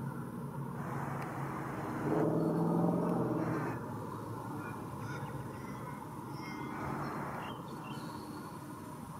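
Outdoor background noise. A louder low hum swells about two seconds in and fades about a second and a half later, and a few faint high bird chirps come through.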